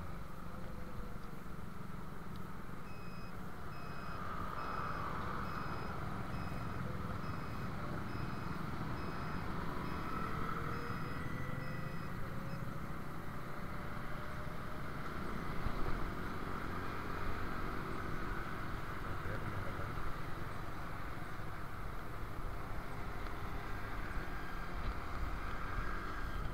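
Steady motorcycle engine, wind and road noise from riding in city traffic, with an electronic beep repeating evenly for about ten seconds early in the ride.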